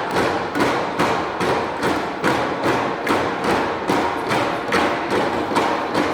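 Bamboo poles of a bamboo-pole dance knocking together and against the ground in a steady, even rhythm.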